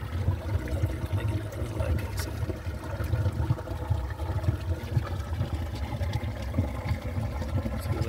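Glacial snowmelt stream running underground beneath a boulder field: a steady, low rushing of water coming up through the gaps between the rocks.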